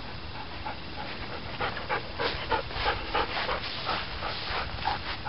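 A nine-month-old black Labrador retriever panting fast close to the microphone, about four pants a second, louder from about a second and a half in.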